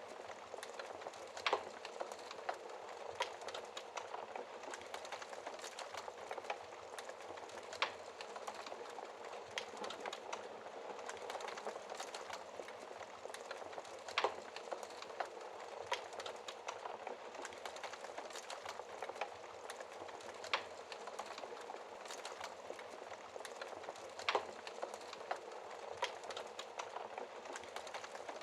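Wood fire crackling in a fireplace: a steady soft hiss of burning with irregular sharp pops and snaps every second or two.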